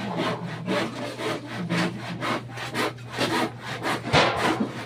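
Hand saw cutting wood in quick, regular back-and-forth strokes, about three a second, with one louder knock near the end.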